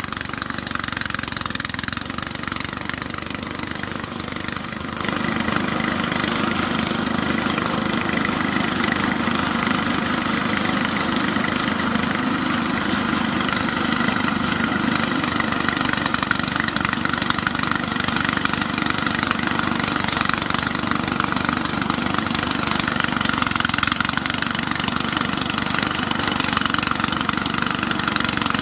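An engine running steadily, with the sound growing louder about five seconds in and then holding even.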